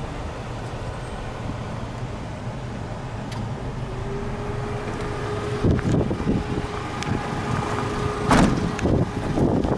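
Toyota Dyna truck engine idling steadily, heard from inside the cab. Knocks and thumps of someone moving through the open cab door come in past the middle, the loudest about eight seconds in, and a steady tone that starts about four seconds in stops at that thump.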